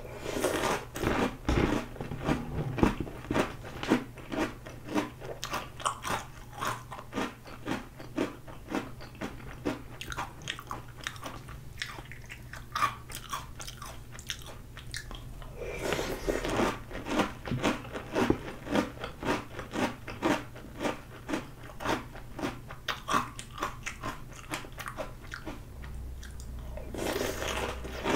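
A person crunching and chewing mouthfuls of dry Oreo O's cereal: rapid runs of crisp crunches, densest with each fresh spoonful near the start, about halfway through and near the end.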